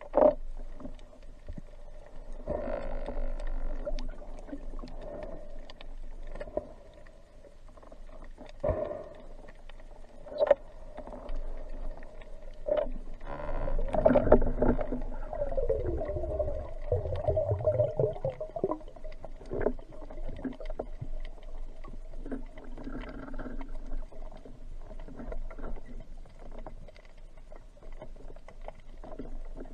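Muffled underwater ambience picked up by a submerged camera: a steady low murk of water noise with scattered sharp clicks, and a louder, deeper rumbling stretch around the middle.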